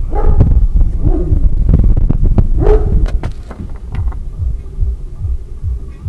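Front suspension of a Mazda 6 being rocked back and forth by hand at the steering knuckle to test the lower control arm's ball joint for play: low, rhythmic thudding, about two to three knocks a second in the second half.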